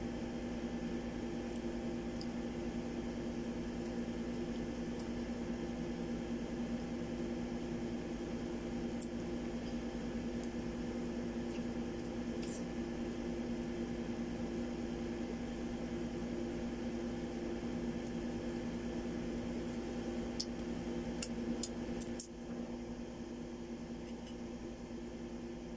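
A steady electrical hum with a few fixed low pitches, with a few faint clicks scattered through it. The hum drops a little about 22 seconds in.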